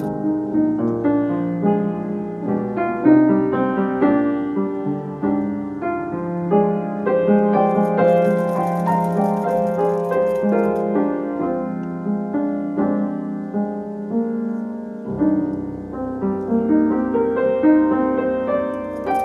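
Piano music: a flowing run of notes and chords.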